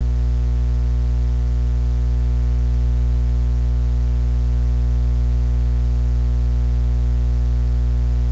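Loud, steady electrical mains hum: a low buzz with a stack of overtones and faint hiss, unchanging throughout.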